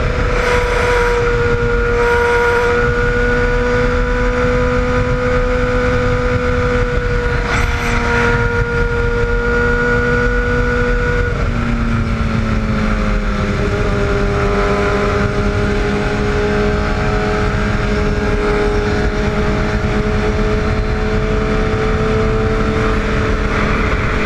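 Sport motorcycle's engine running steadily at highway cruise in fourth gear, under heavy wind rush. The engine note drops a step about twelve seconds in and again a little later as the bike slows.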